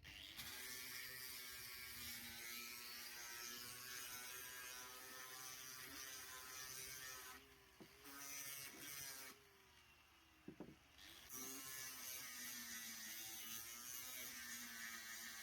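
A small electric power tool's motor runs with a whining hum over hiss, its pitch wavering slightly as it works. It cuts out briefly about halfway through and again for a couple of seconds soon after.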